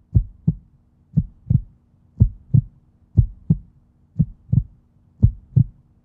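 Heartbeat sound effect: paired low thumps, lub-dub, about one pair a second, over a faint steady hum.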